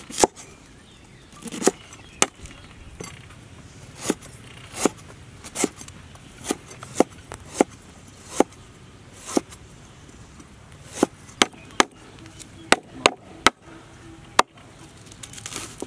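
Cleaver chopping on a thick wooden cutting board: single sharp knocks at an uneven pace, about eighteen in all, as it slices through a fresh ginger-like root.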